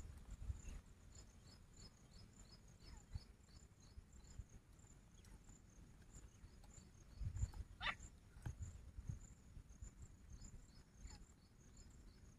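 Faint outdoor ambience near silence: insects chirping in a high, even pulse about three or four times a second, with low rumbling bumps on the microphone and one short rising chirp about eight seconds in. No loud grey francolin call is heard.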